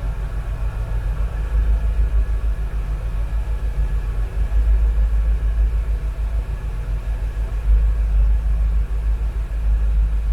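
1972 Chevy Nova's engine idling with the air conditioning running, a steady low rumble.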